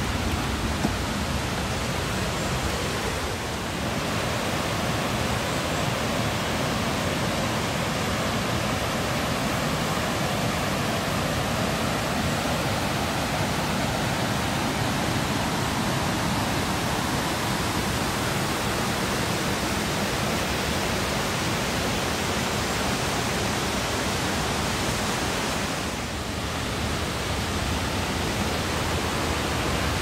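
Steady rush of a mountain stream pouring over rock ledges in small cascades, with two brief dips in level.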